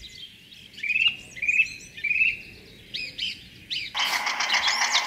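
A bird chirps three times in quick succession, then a few shorter chirps. About four seconds in, the model tractor's small motor starts abruptly and runs with a loud, steady buzz.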